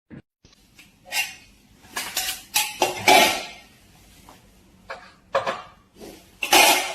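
Irregular clattering and clinking of hard objects being knocked about: a string of separate knocks, the loudest about three seconds in and again near the end.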